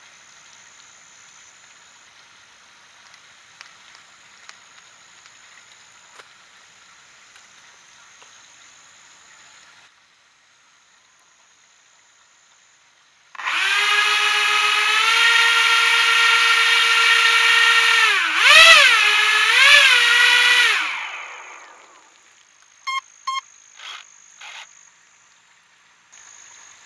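Twin Racerstar 2205 2300kv brushless motors on an FPV RC boat spinning its propellers up abruptly to a loud, steady high whine. The pitch wavers down and up twice as the throttle is worked, and after about seven seconds the whine winds down. A few short clicks follow.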